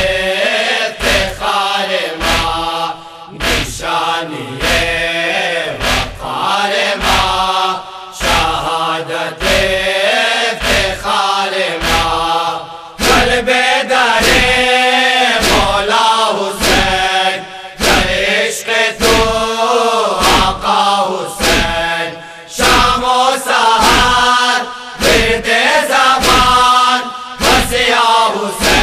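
Voices chanting a Shia mourning lament (noha) for Hussain, over strong, evenly spaced thumps about every three-quarters of a second. The chant grows louder about halfway through.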